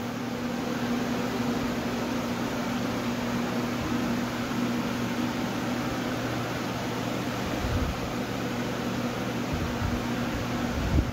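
Steady machine hum with a rushing air noise, like a fan or blower running, with a few dull low bumps near the end.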